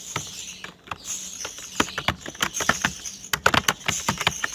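Computer keyboard being typed on at a steady touch-typing pace of about 49 words a minute: an irregular run of quick key clicks with brief gaps, thickest about three and a half seconds in.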